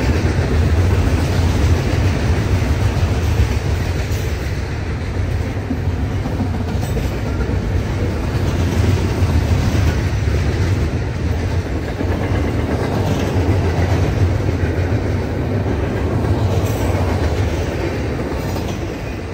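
Freight train cars rolling past on the track, a steady loud rumble of steel wheels on rail.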